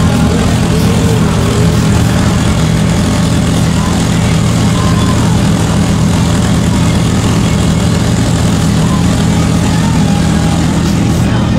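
Turbocharged drag car's engine idling loud and steady, with no revving.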